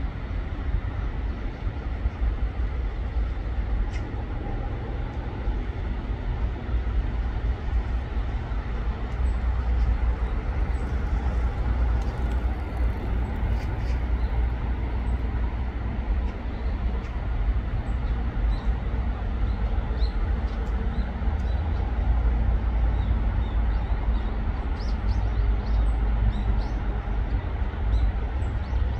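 Steady low rumble with a hiss of background noise, and a few faint high ticks.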